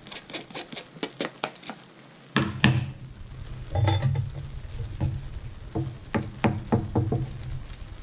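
Wooden spoon knocking and scraping against a metal mesh strainer and a stainless steel pan as rice is spooned out and spread in the pan: irregular taps, the loudest a few seconds in.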